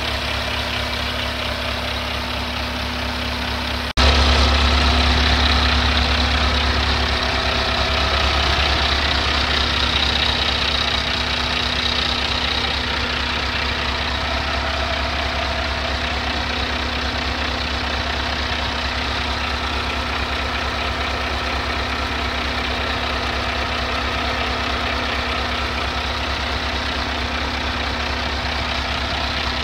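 Renault Kerax 320 DCi truck's six-cylinder diesel engine idling steadily. About four seconds in the sound jumps suddenly louder and then runs on evenly.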